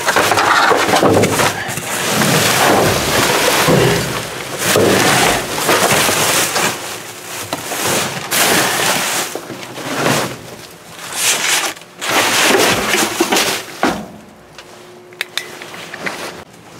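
Plastic bags, packaging and boxes of trash in a dumpster being rummaged through close to the microphone: loud rustling and crinkling that comes in uneven swells, with a few sharp knocks.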